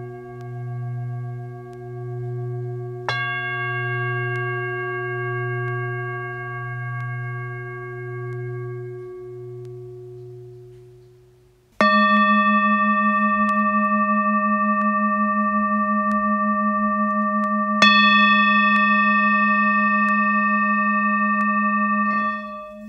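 Tibetan singing bowls struck with a mallet and left ringing, the low tone wavering in a slow beat. A second bowl is struck about three seconds in and the ringing fades; about halfway through, a different bowl is struck more loudly, then struck again about six seconds later. The ringing stops abruptly shortly before the end.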